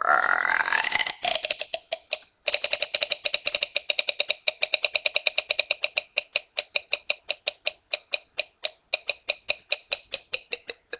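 A boy making a mouth noise: a short gliding voiced sound, then a long rapid run of short buzzy beep-like pulses, several a second, that spread out toward the end.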